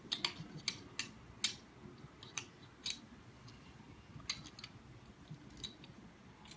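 Small sharp clicks and taps of screws being handled and fitted while mounting the handle on a polyurethane injection pump, about a dozen at an irregular pace.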